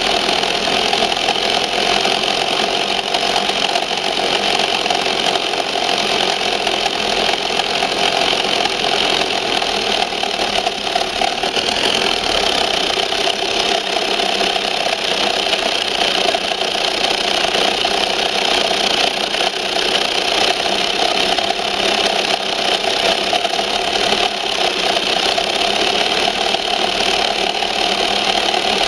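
Electric motor and gearbox of a Tamiya Ford F-350 radio-controlled truck whining steadily as it drives over loose gravel, picked up by a camera mounted on the truck's hood, with the tyres' gravel noise underneath.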